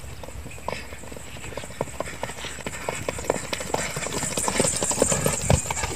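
Hoofbeats of a ridden horse on dry, sandy ground: a quick, irregular run of thuds and clicks that grows louder in the second half as the horse comes close.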